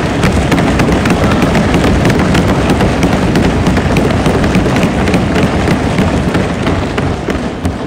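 Many assembly members thumping their desks and clapping: a loud, dense clatter of many quick hits that holds throughout and eases near the end.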